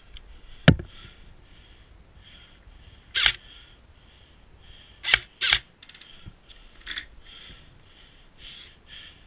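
Airsoft rifle firing sharp single shots: one about 3 s in and two close together about 5 s in. A heavy thump comes under a second in, and a faint rasping pulses a couple of times a second underneath.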